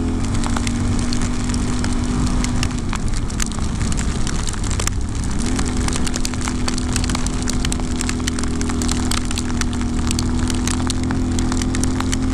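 Yamaha Ténéré 700's parallel-twin engine running under way, its pitch dropping about three seconds in and climbing again around six seconds. Many sharp ticks of raindrops hitting the camera throughout.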